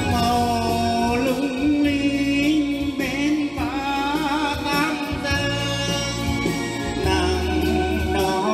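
A man singing a Vietnamese ballad into a microphone over backing music, holding long wavering notes with vibrato.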